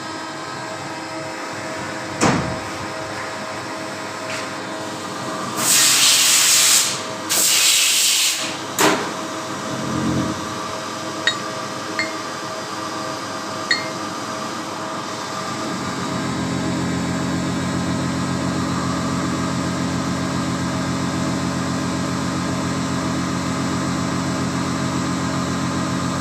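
CNC machine shop: steady machine hum with two loud hissing bursts about six and seven and a half seconds in, and a few sharp clicks. About sixteen seconds in, a louder steady low hum joins as another motor starts running.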